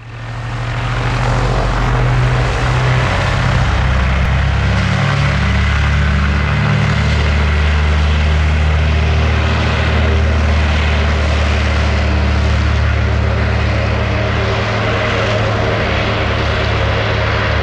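Douglas DC-3's twin radial piston engines running at takeoff power with heavy propeller noise as the aircraft rolls down the runway. The sound fades in over the first second, holds steady, and eases slightly near the end as the plane draws away.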